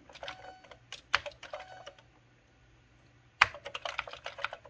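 Keys being typed on a Commodore 128 keyboard: two quick runs of keystroke clicks, separated by a pause of about a second and a half.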